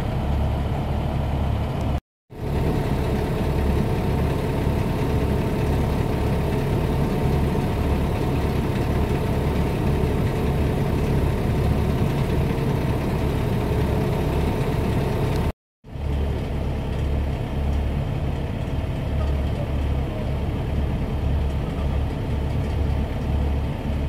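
Engine of a small tracked drill rig running steadily, a continuous low hum with an uneven throb. The sound drops out completely for a moment twice, once about two seconds in and once past the middle.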